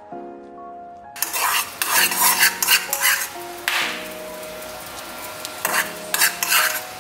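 A metal spoon stirring and scraping through hot bubbling caramel in a metal wok, in uneven bursts of sizzle and scrape that start about a second in. The sugar has cooked to the golden-brown caramel stage. Soft background music plays throughout.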